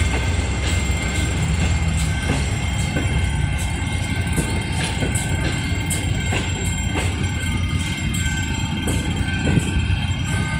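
Empty passenger coaches rolling past on the track: a steady rumble with irregular clicks as the wheels run over rail joints, and steady high tones running over it.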